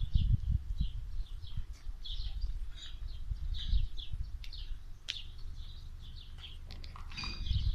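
Small birds chirping in quick, repeated calls, over a low rumble on the microphone.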